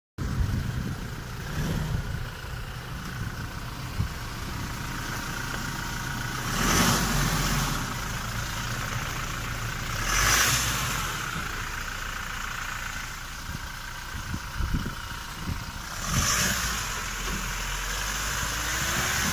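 Toyota Hilux pickup's engine running as it drives through mud. Three louder rushing surges come through, roughly a third of the way in, halfway and near the end.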